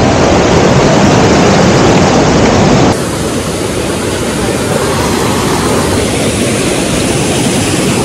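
Water rushing and splashing over rock ledges in a stream's cascade, a loud steady rush that drops somewhat in level about three seconds in.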